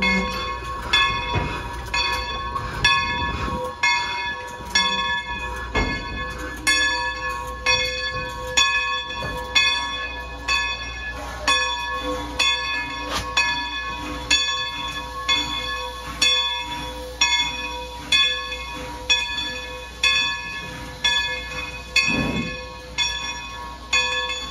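Steam locomotive bell ringing steadily, struck a little more than once a second, over the low rumble of the train rolling. There is one heavier low thump near the end.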